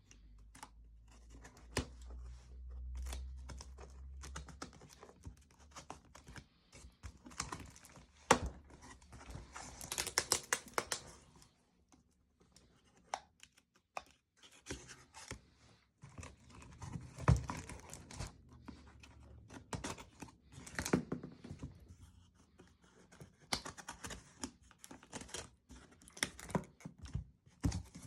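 Packaging of a robot toy being opened by hand: irregular tearing, crinkling and rustling of paper and plastic, with scattered clicks and scrapes from cardboard being handled.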